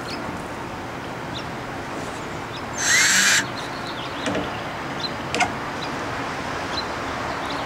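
A power drill run in one short half-second burst about three seconds in, followed by a few light clicks of work on the coop parts.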